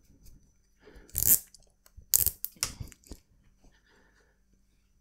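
Plastic cable ties being pulled through their ratchet locks while a bicycle chain guide is fastened. There are a few short ratcheting pulls, the loudest a little over a second in and two more between two and three seconds in, with light handling noise between them.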